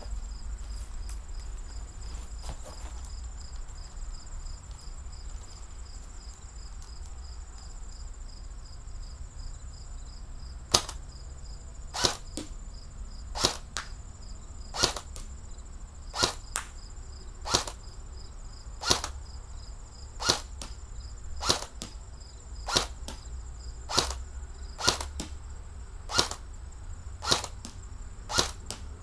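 G3 airsoft rifle firing single shots, sharp cracks about every second and a half, starting about a third of the way in. Insects chirp steadily throughout.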